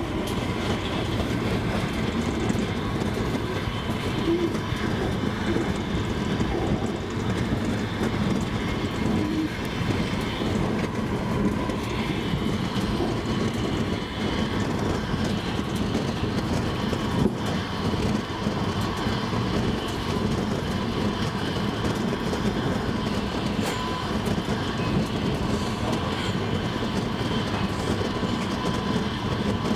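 Double-decker passenger train running on the rails: a steady rumble with the clickety-clack of the wheels over the track and a faint steady whine.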